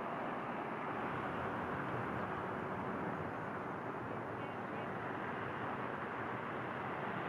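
Steady downtown street ambience: an even wash of traffic noise with no single sound standing out.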